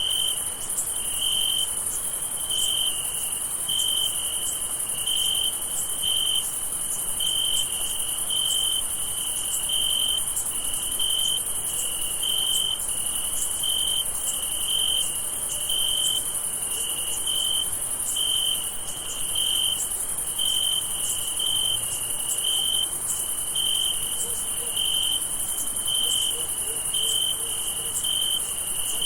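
Crickets chirping at night in a steady, even rhythm of about one and a half chirps a second, over a continuous high-pitched insect trill.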